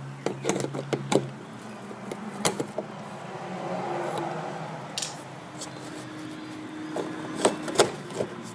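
Scattered clicks and knocks of hand tools and fasteners being worked on the underside of a car, with two sharp knocks close together near the end, over a low steady hum.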